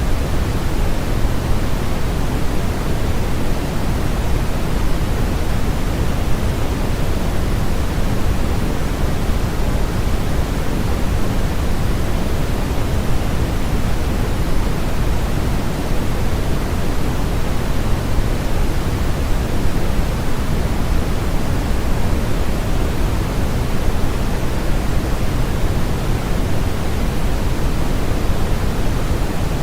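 Steady, unchanging synthesized noise of the sleep-aid kind, weighted toward the low end so it sounds deeper and softer than hissy white noise.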